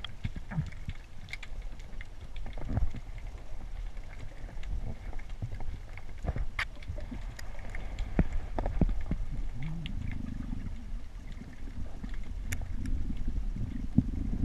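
Underwater sound picked up through a camera's waterproof housing: a steady low rumble of moving water with scattered sharp clicks and knocks, as a speargun and gear are handled against rock. From about ten seconds in a louder low rumble builds.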